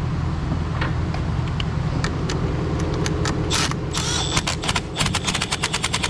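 Half-inch impact gun, fitted with stacked adapters down to a 10 mm socket, running a battery terminal nut down. A couple of short bursts about three seconds in give way to rapid hammering, about ten blows a second, over a steady low hum.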